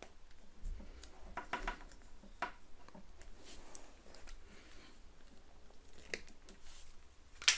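Faint scraping, rustling and small clicks of a power cord's plastic outer sheath being pulled off and worked with a utility knife, with one sharp click near the end.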